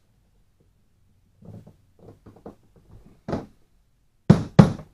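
Hand work on a plastic kayak's front carry handle and its fastening hardware: light clicks and rattles, then two loud sharp knocks in quick succession near the end.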